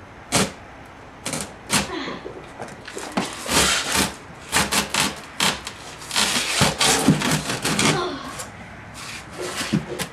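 Packing tape being pulled off the roll and pressed onto a cardboard box: many short, loud rips, some drawn out to about half a second, with a quieter spell near the end.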